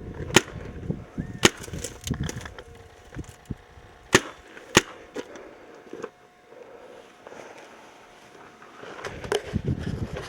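Paintball marker shots: single sharp pops fired irregularly, four loud ones in the first five seconds and several fainter ones between, with rustling and knocks of movement near the end.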